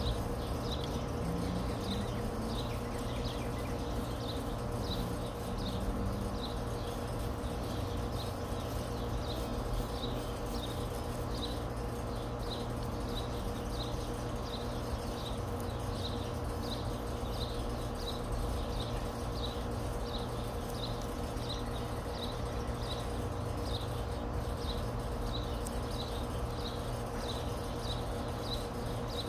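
A small animal chirping: short, high chirps repeating evenly, about three every two seconds, over a steady low hum.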